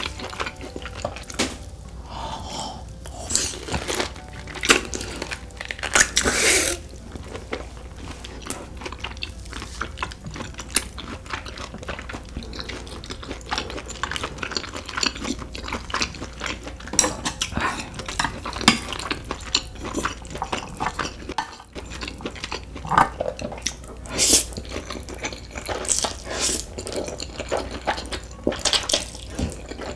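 Close-up eating sounds: wet chewing and lip smacks of smoked pork dipped in melted cheese sauce, a steady run of short sticky clicks with a few louder snaps. Near the end, spicy noodles are slurped.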